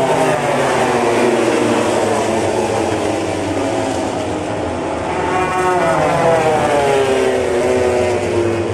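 MotoGP racing motorcycles passing at high revs on a wet track, each engine note falling in pitch as the bikes go by. A second bike or group passes, falling the same way, about five and a half seconds in.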